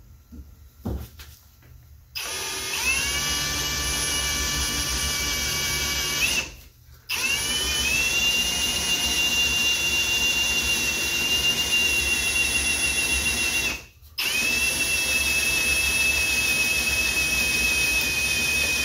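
Cordless drill boring a hole through the thin sheet-metal body of a 60-series Land Cruiser. The drill starts about two seconds in and runs in three stretches of steady, high-pitched whine, each rising in pitch as the motor spins up, with brief stops about six and fourteen seconds in.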